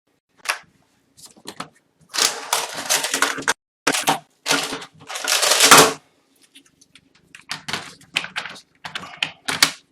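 The plastic case of a Dell Inspiron 15 3000 laptop being closed and pressed shut: sharp clicks and snaps, with longer scraping sounds in the middle, then a run of scattered clicks near the end.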